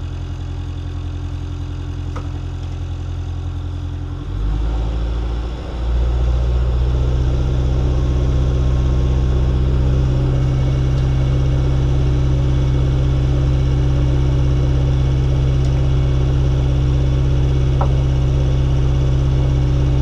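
Motor boat's engine running steadily, then opened up about four seconds in; after a brief dip it settles into a louder, steady run at higher revs.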